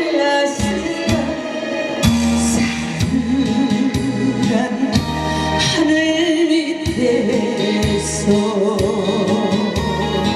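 Song music near the close of a Korean ballad: a wavering melody line with vibrato over a steady, regular bass beat.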